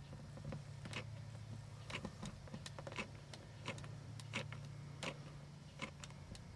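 Faint, irregular small clicks and ticks from working a hot glue gun against plastic ceiling trim, over a steady low hum.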